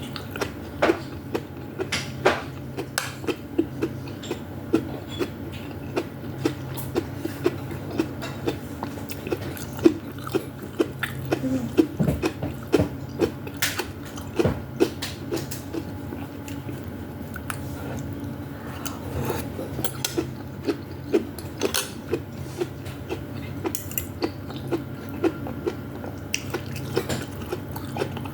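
Close-miked chewing of vegetable soup with meatballs: a steady run of short, sharp mouth clicks, about one or two a second, over a steady low hum.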